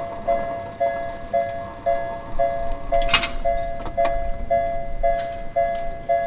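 Japanese railway level-crossing warning bell ringing: an electronic ding repeating steadily about twice a second, the signal that a train is approaching. A short hiss sounds about three seconds in.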